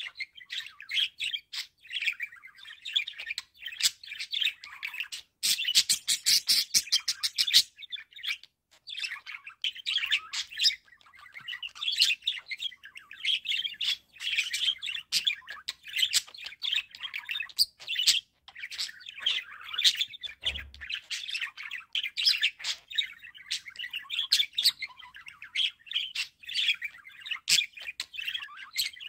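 Pet budgerigars warbling and chirping in fast, continuous chatter, with a run of rapid clicks about five to seven seconds in.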